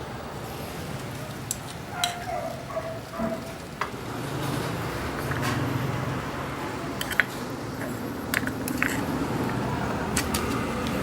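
Food sizzling and simmering in a miniature pan, with scattered light clicks and taps of a small utensil against the pan as it is stirred.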